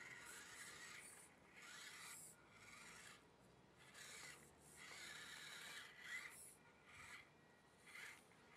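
Losi 1/24 micro rock crawler's small electric motor and drivetrain whining faintly in short bursts of throttle, about once a second, as it climbs over bricks.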